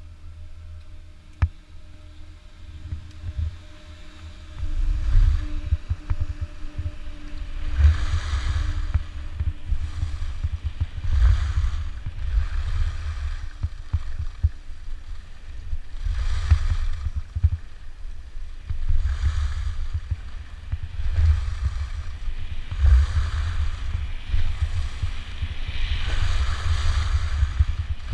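Wind buffeting the microphone with a constant low rumble, and skis scraping across snow in bursts of hiss about every two to three seconds, the turns starting about a third of the way in.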